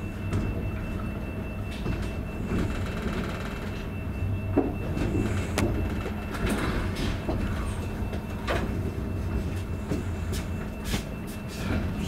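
Inside a moving passenger train carriage: a steady low rumble and hum of the running train, with irregular knocks and clicks from the carriage and running gear.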